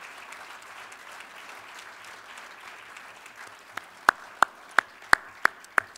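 Audience applause filling the room, with about six sharp, loud hand claps close to the microphone in the last two seconds, at roughly three a second.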